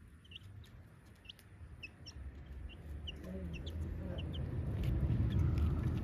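Young chickens peeping in short, high chirps, about two or three a second, thinning out near the end, while they peck at feed. Under them a low rumble grows louder through the second half.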